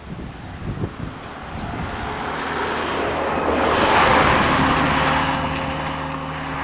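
A box lorry passing close on the road. Its engine and tyre noise swells to a peak about four seconds in, then eases as it drives away with a steady engine hum. Wind buffets the microphone.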